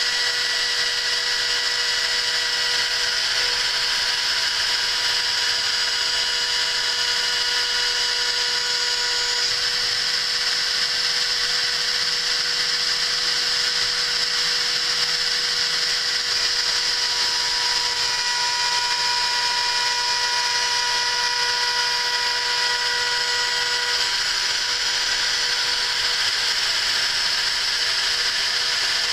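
CNC milling spindle running as a 6 mm two-flute HSS end mill takes a light 0.1 mm surfacing pass across a raw bronze block: a steady high whir, with a few faint whining tones that change pitch every several seconds.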